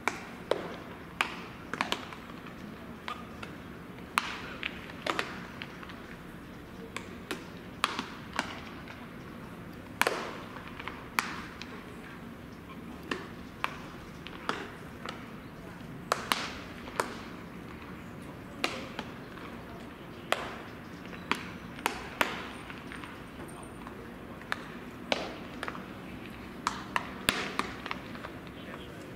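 Baseballs smacking into leather gloves during a game of catch: sharp, irregular pops about once a second, over a murmur of voices.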